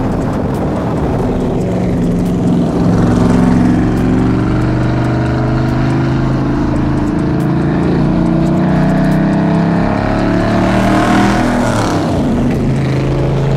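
Big-block 427 Chevy V8 with independent throttle bodies and straight pipes, in a widebody C2 Corvette, running loud on the road. The engine note climbs under acceleration around ten seconds in, then settles back to a steady drone.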